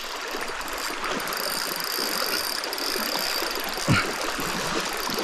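Steady rush of flowing creek water, with a thin steady high tone above it and one brief louder knock about four seconds in.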